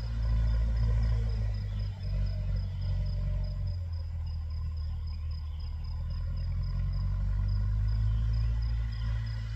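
Massey Ferguson 290 tractor's diesel engine running steadily under load while ploughing, a deep continuous drone. A regular high chirp, about four a second, runs over it.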